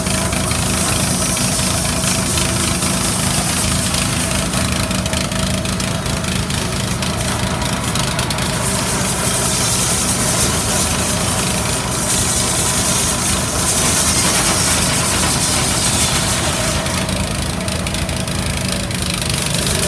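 Small petrol engine running steadily with an even hum.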